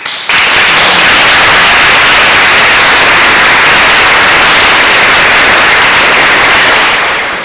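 Audience applauding, starting all at once and holding steady, then tapering off near the end.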